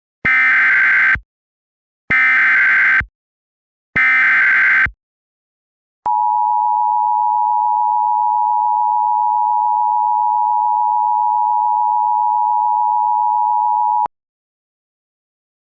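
Emergency Alert System signal: three one-second bursts of warbling SAME header data tones about two seconds apart, then the two-tone EAS attention signal held steady for about eight seconds and cut off sharply. It announces a tornado warning.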